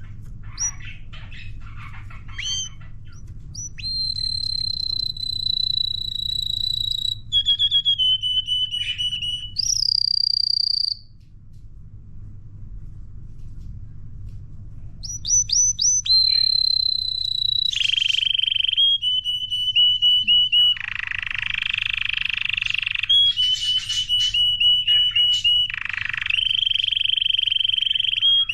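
Young canary singing a still-developing song. It opens with quick chirps, then long held trilled tones and rapid rolls. There is a pause of a few seconds about a third of the way in, and a harsher, scratchier passage about two thirds of the way through.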